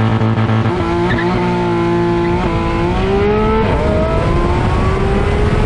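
Porsche 991.1 GT3's naturally aspirated flat-six engine running hard under load: its pitch holds for a couple of seconds, dips briefly twice, then climbs steadily as the car accelerates.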